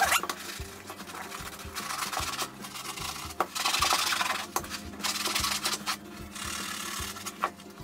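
A Scrub Mommy sponge loaded with The Pink Stuff cleaning paste scrubbing a white leather Nike Air Force sneaker: a scratchy rubbing that comes in several spells of quick back-and-forth strokes with short pauses between them.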